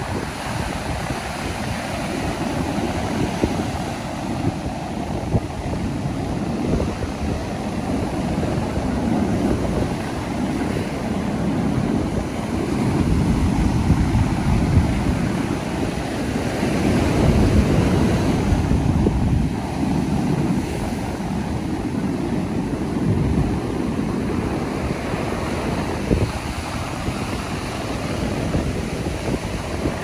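Ocean surf breaking and washing up a sandy beach: a continuous rush of water that swells and ebbs with each wave, loudest about halfway through.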